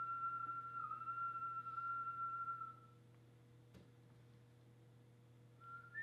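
A high, pure whistle-like tone held steady for nearly three seconds, dipping briefly in pitch about a second in, then stopping. Near the end a new tone starts and steps up higher in pitch, over a faint steady hum.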